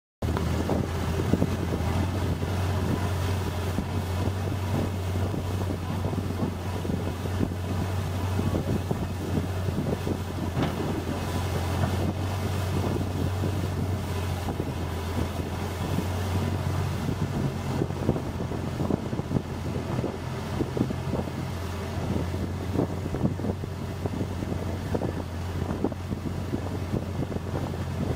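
Long-tail boat's engine running steadily as the boat travels along, a low even drone, with wind buffeting the microphone.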